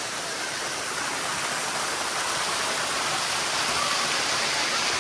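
Water of the Bua Tong (Sticky) Waterfall rushing steadily over its limestone cascades, a little louder toward the end.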